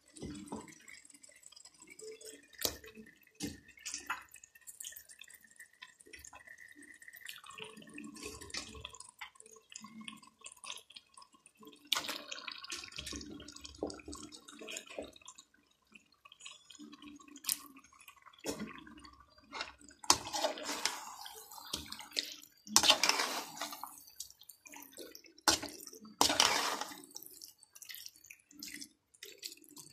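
Wet raw chicken pieces dropping and sliding into a pan of sautéed onion-tomato masala, with irregular wet plops and drips. In the last third come louder bursts as a slotted metal spoon stirs the chicken against the pan.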